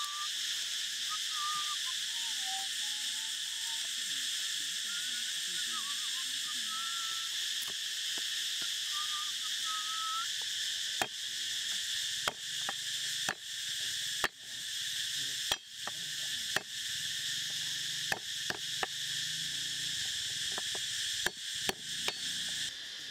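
Cleaver chopping garlic on a round wooden chopping board: sharp knocks, roughly one a second, starting about eleven seconds in. Under them runs a steady high drone of insects.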